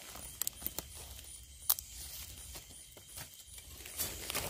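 Dry leaf litter rustling and crackling, with scattered sharp clicks and one louder snap near the middle.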